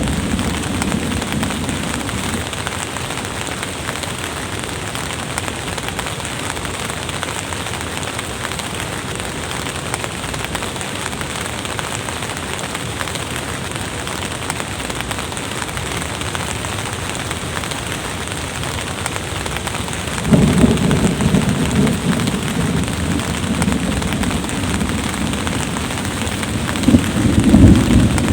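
Steady rain with rolling thunder: a low rumble fades in the first couple of seconds, another begins about twenty seconds in, and it swells louder again near the end.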